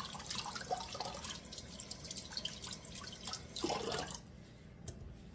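Wet splashing and dripping with small irregular clicks, from hands lifting cooked lasagna noodles out of water in a bowl; it dies down about four seconds in.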